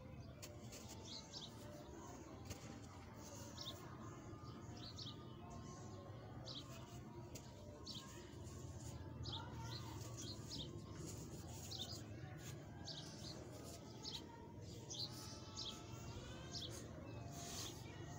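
A packed ball of dry grey sand crumbling as a hand squeezes it, with soft gritty crackles. Birds chirp in short calls over and over in the background.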